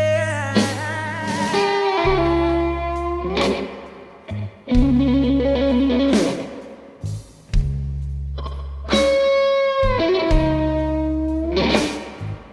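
Slow blues electric guitar lead playing long sustained notes with vibrato and bends, over low bass notes.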